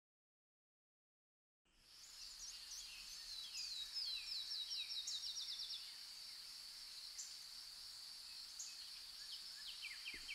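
After about a second and a half of silence, faint natural ambience fades in: a steady high insect drone with songbirds calling over it. One bird gives a quick run of down-slurred notes that speeds up.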